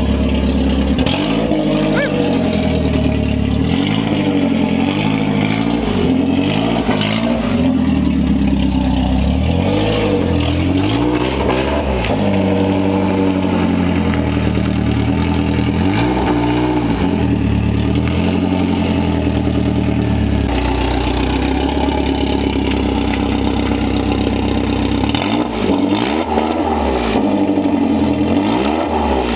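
BMW 318iS 1.8-litre four-cylinder engine revving hard as the car is driven on test. Its pitch climbs and drops repeatedly, with a steadier stretch in the middle.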